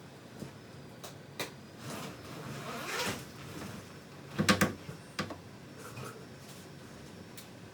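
Scattered plastic clicks and knocks of vacuum hose and fittings being handled and refitted. There is a short rustle about three seconds in and a louder cluster of clatters about four and a half seconds in; the vacuum itself is not running.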